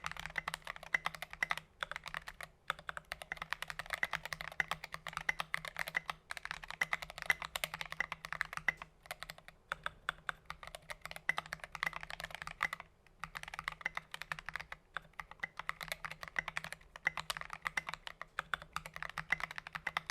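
Rapid typing on a Keychron V1 mechanical keyboard with Akko Jelly Blue tactile switches and SA-profile keycaps: a dense stream of keystroke clacks with a few brief pauses, a fairly deep sound.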